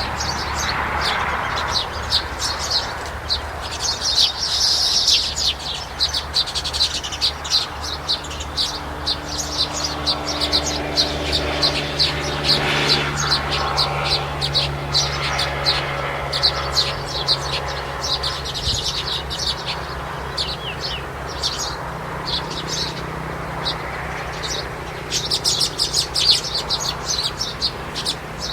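Many small birds chirping in rapid, overlapping high notes, busiest near the start and again near the end, over a low steady hum.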